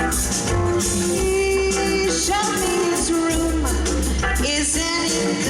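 A live band playing with a singer: held vocal notes over a steady bass line and cymbals.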